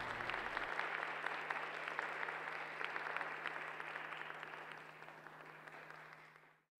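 Theatre audience applauding at the end of a ballet solo, a dense patter of clapping that slowly fades and then cuts off suddenly near the end.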